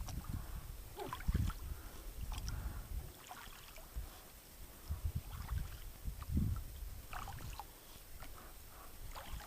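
Inflatable kayak being paddled: irregular splashes and drips from the paddle strokes, with low thuds against the hull.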